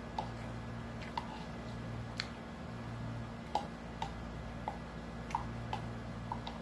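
Metal spoon clinking and scraping against a bowl while eating: a scattered series of light clicks at uneven intervals, over a steady low hum.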